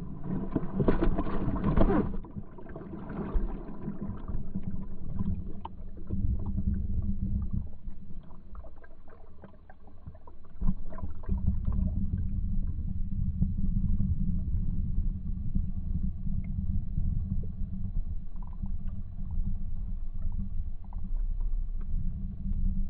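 Underwater sound: a rush of bubbles for the first two seconds, then a steady low rumble of boat-engine noise carried through the water, with scattered short clicks over it.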